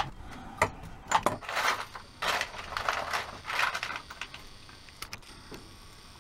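Small metal hardware (bolts, nuts and washers) clinking and rattling as a hand rummages through a plastic parts box: a string of short clatters over the first four seconds, then a few faint clicks.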